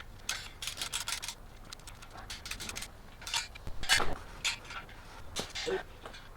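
Hand work on metal parts: quick rattling clicks, then scattered clinks and rubbing, with one louder knock about four seconds in.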